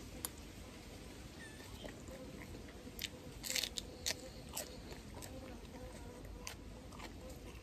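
A person chewing food up close, with a cluster of crisp crunches about three to four and a half seconds in as a fresh lettuce leaf is bitten and chewed.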